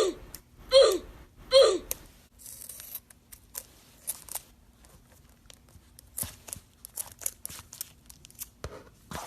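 Three short squeaks, each falling in pitch, in the first two seconds, then soft scattered snips, clicks and tearing sounds of a slime stress ball being cut open.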